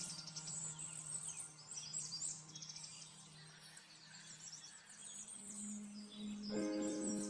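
Soft background music of held tones with high, bird-like chirps over it; a fuller, louder chord comes in near the end.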